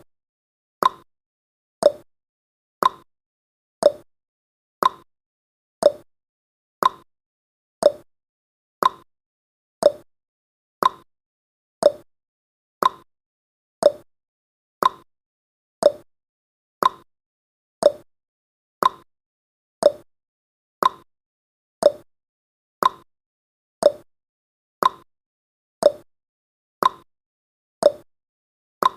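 Countdown timer's ticking sound effect: one short, sharp tick every second, at a steady pace.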